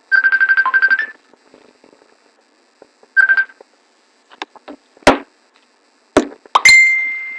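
Electronic beeps and tones like a phone's alert: a fast pulsing beep for about a second, a short beep about three seconds in, then two sharp clicks and a higher chime that rings on and fades near the end.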